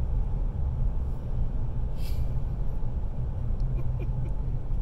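Steady low rumble of a truck's engine and tyres heard from inside the cab while driving, with a brief hiss about two seconds in.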